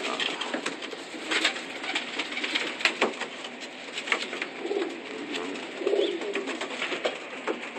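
Racing pigeons cooing, with low coos about four and six seconds in, over scattered short clicks and scuffles.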